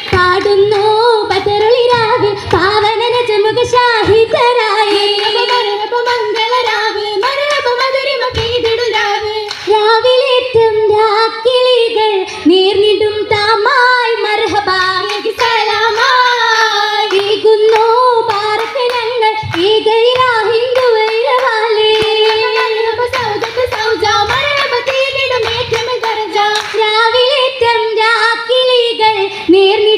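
Girls singing a Mappila song for an Oppana dance, a continuous sung melody with hand claps from the dancers at intervals.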